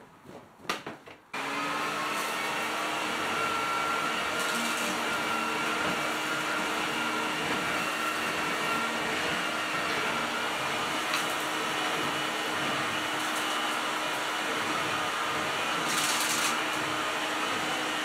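Electrolux Ultralux canister vacuum cleaner starting abruptly after a couple of clicks a little over a second in. It then runs steadily with a motor whine and rushing air as its power head is pushed over a hardwood floor. A brief louder hiss comes near the end.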